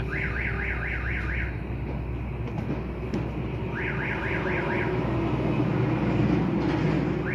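An electronic alarm warbling in quick rising chirps, about four a second, in two short runs: one at the start and another a little under four seconds in. A low steady hum runs under it.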